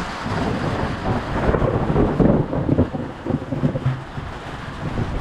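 Thunder rumbling over falling rain, swelling to its loudest about two seconds in and then rolling off.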